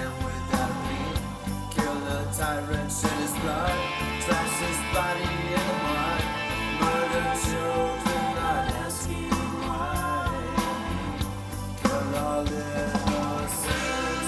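Rock song with drum kit and bass under a lead line that slides in pitch.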